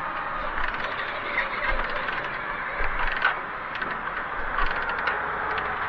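Motorcycle kick-starter being kicked over, the lever and ratchet clicking and clunking with a few dull thumps, and the engine not catching. The rider suspects a carburettor flooded with petrol.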